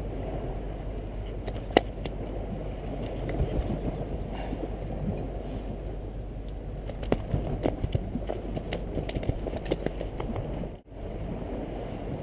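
Wind buffeting a GoPro microphone in a steady low rumble, over which small sharp clicks and taps come and go, the sounds of the jig's hook and hardware being worked free of a freshly landed Atlantic bonito's mouth. The sound drops out briefly near the end.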